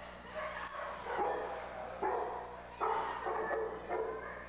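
A pit bull barking repeatedly, several barks about a second apart. It is the adult male standing his ground and barking at a person during a behaviour evaluation.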